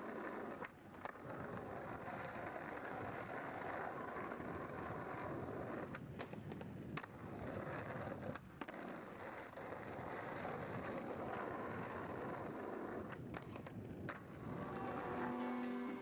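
Skateboard wheels rolling over rough city pavement, with several sharp clacks of the board popping and landing.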